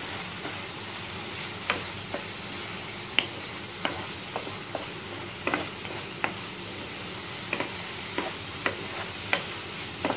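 Wooden spatula stirring an onion-tomato masala with spice powders in a non-stick frying pan, the spatula knocking and scraping on the pan at irregular intervals over a steady sizzle.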